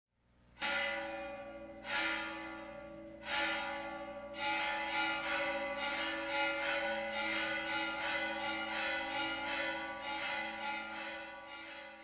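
Church bells ringing: three single strikes that ring out and die away, then a quicker, steady run of peals that slowly fades.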